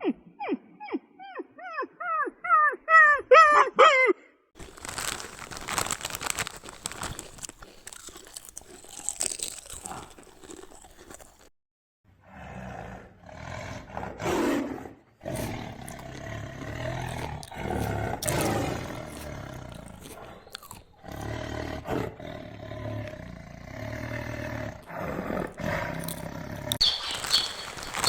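A quick run of short pitched calls, growing louder over the first four seconds, then a big cat's deep, rough growling and roaring through the rest, with a higher call near the end.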